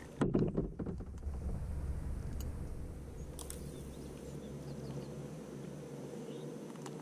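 A few knocks and rustles from fishing gear being handled in the kayak about a second in, then a low steady rumble with a few faint bird chirps.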